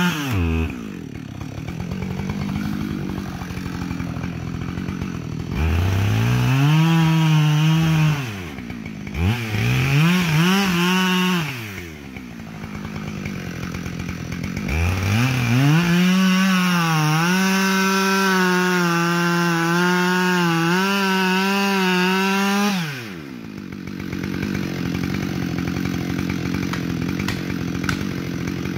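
Two-stroke gas chainsaw cutting into a white oak trunk. It runs at a low idle, is revved up twice briefly, then runs at steady full throttle in a long cut of about seven seconds before dropping back to idle.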